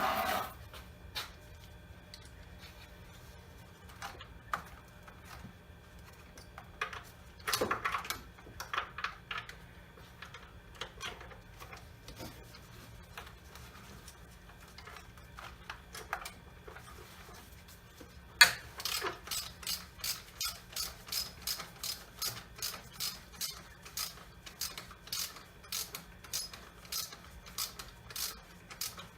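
Hand tools clinking and knocking on metal in scattered taps, then from about two-thirds of the way in a ratchet wrench clicking in a steady run of about two strokes a second, working the intake manifold bolts.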